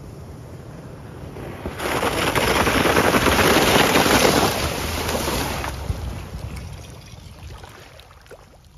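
Lexus GX470 SUV driving through meltwater over an icy trail, its tyres throwing up a loud rushing splash for about four seconds as it passes, then fading as it moves away, over a low rumble.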